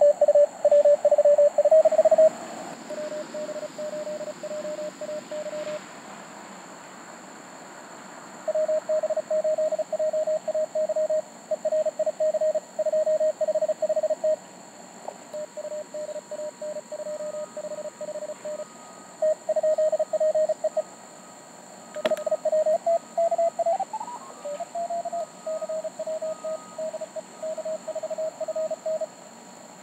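Morse code (CW) tones from a Mountain Topper MTR4B QRP transceiver: a single pitch keyed on and off in quick dots and dashes as contest stations trade call signs, names and member numbers. Some stretches of code come through strong and others weaker. In the second half a fainter, higher tone runs alongside, there is a short upward pitch glide, and a single sharp click falls about two-thirds of the way in.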